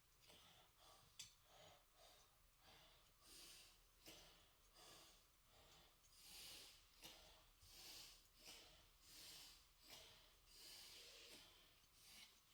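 Near silence, with faint breaths close to the microphone coming about once every second and a half.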